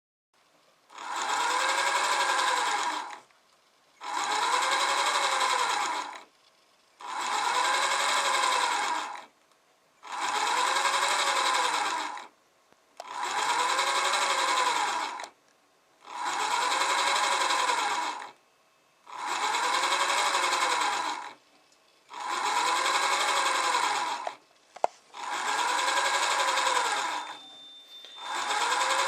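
Small DC motor under closed-loop position control, running through repeated shaped moves: about ten bursts of whine, one every three seconds. In each burst the pitch rises as the motor accelerates and falls as it decelerates to a stop, following the programmed cam-like motion profile.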